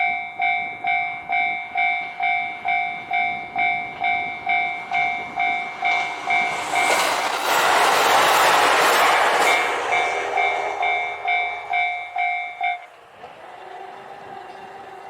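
Japanese level-crossing warning bell ringing in a steady beat, about two strokes a second, while a JR Hokkaido H100 'Decmo' diesel-electric railcar passes over the crossing. The train's running noise and wheel clicks swell loud in the middle and drown the bell for a few seconds. The bell stops near the end as the train draws away.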